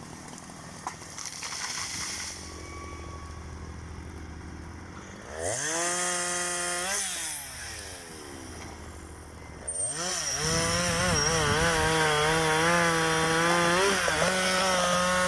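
Chainsaw revved up twice over a steady low engine hum: a short burst to full speed about five seconds in, then a longer run from about ten seconds in with its pitch wavering, as under load in wood, before it drops back near the end.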